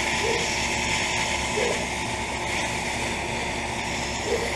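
York central air conditioner condenser running: a steady hum of the compressor and condenser fan.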